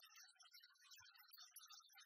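Near silence: only faint, scattered low-level noise.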